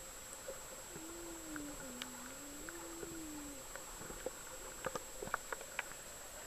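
Underwater sound picked up by a camera in its waterproof housing: a low hum that wavers down and up in pitch for a couple of seconds, then scattered sharp clicks and taps.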